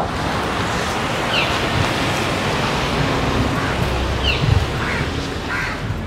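Steady outdoor rushing noise, with short, falling bird calls: one about a second and a half in, one around four seconds and one near the end.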